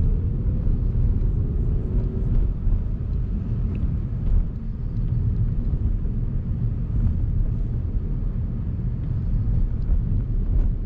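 Car engine and road rumble heard from inside the cabin as the car pulls away under acceleration, the engine note climbing over the first two seconds or so, then a steady rumble.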